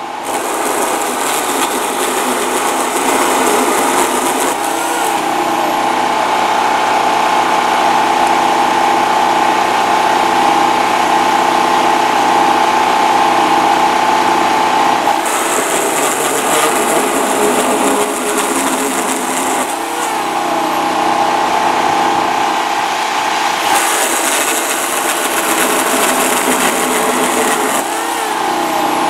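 Worx JawSaw corded electric chainsaw running with a steady motor whine. Three times, for about five seconds each (near the start, in the middle and near the end), a high hiss joins it as the chain cuts through branch wood.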